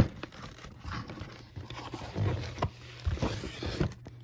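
Cardboard shipping box being handled and its flaps pulled open: soft scrapes and rustles with a few short sharper scratches.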